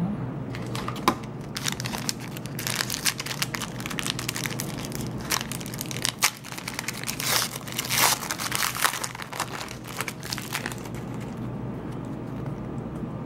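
A foil trading-card pack wrapper being torn open and crinkled by hand, a quick run of crackles that is busiest in the middle, as the cards are pulled out.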